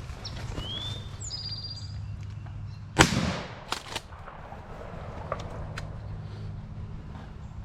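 A single shotgun blast about three seconds in, the shot that kills a wild turkey gobbler, followed by a few quieter sharp knocks.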